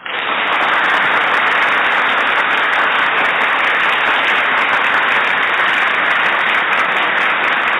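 Loud, steady applause that starts abruptly and holds at an even level.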